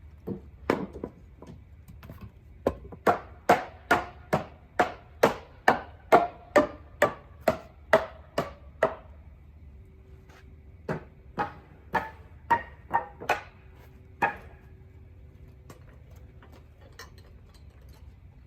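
Hammer driving nails into wood: two runs of steady blows, about two a second, each strike ringing briefly, with a pause of about two seconds between the runs.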